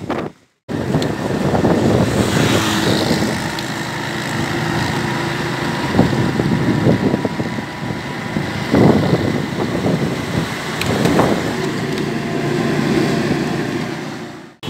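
Motorcycle engine running steadily while under way, a droning hum with a rushing noise over it. The sound drops out for a moment just after the start.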